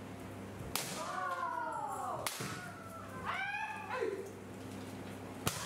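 Kendo sparring: bamboo shinai strikes cracking sharply on armour, three hits, with drawn-out kiai shouts between them.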